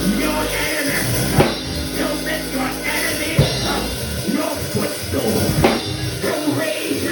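Live church band music driven by a drum kit with bass drum, with voices over it: a praise break after the call to shout.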